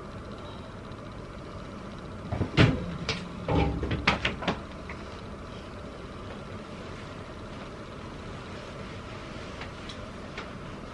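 A louvered bifold closet door knocking and rattling as it is handled: a quick cluster of clatters and knocks between about two and four and a half seconds in, over a steady low hum.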